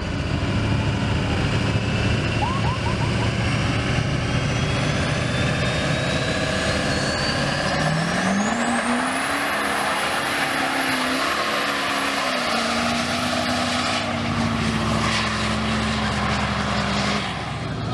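Diesel Chevrolet Silverado HD pickup doing a burnout: its Duramax engine is revved up about eight seconds in and held high, with the turbo's whistle climbing to a high pitch, over a steady hiss of spinning tyres.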